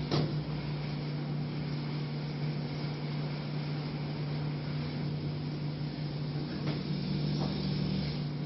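Steady background hum with a low even tone under a hiss of room noise, and a few faint small clicks.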